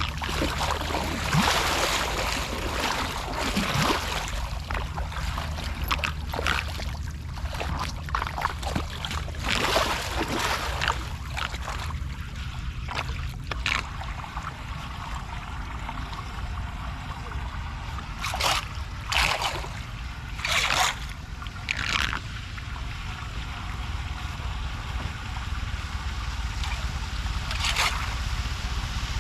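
Flowing floodwater with irregular splashes over a steady low rumble; a cluster of sharp splashes comes about two-thirds of the way through, and another near the end.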